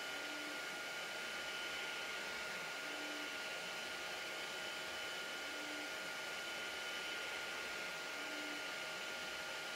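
Tronxy CRUX 1 3D printer running: a steady fan whir with a few constant tones, and a faint low motor whine that rises and falls in pitch in a cycle about every two and a half seconds as the print head circles a cylindrical part.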